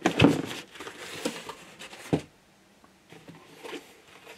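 Cardboard box and packing being handled: a run of rustles and knocks for about two seconds, loudest just after the start, then only a few faint clicks.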